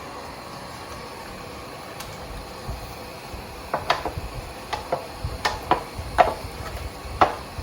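A metal utensil clinking and knocking against a pan about ten times in the second half as roasted chicken pieces are moved into the sauce, after a few seconds of faint steady hiss.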